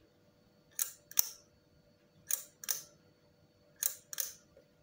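Shutter of a 1949 Bencini Relex 127 film camera being released three times by hand, each firing a sharp double click.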